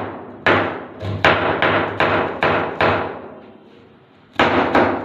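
Kitchen knife chopping cabbage on a plastic cutting board: sharp, even knocks of the blade striking the board, about two to three a second, with a pause of about a second in the middle.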